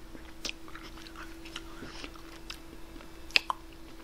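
Close-up mouth sounds of eating cherry jubilee ice cream: soft smacks and small chewing clicks, with two sharper clicks a little past three seconds. A faint steady hum underneath.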